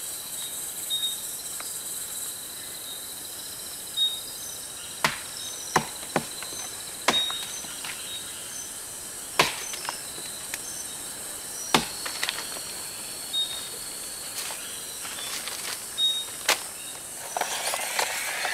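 Rainforest ambience: a steady high insect buzz with short high chirps repeating every second or two, and about a dozen sharp clicks and knocks scattered through it.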